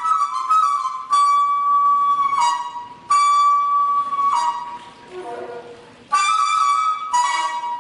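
Daegeum, the Korean bamboo transverse flute, playing long held high notes with pitch slides and ornaments between them, each new note entering sharply.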